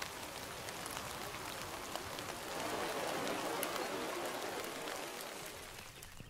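Steady hiss of rain and running water, swelling into the rush of a river's rapids in the middle and easing off near the end.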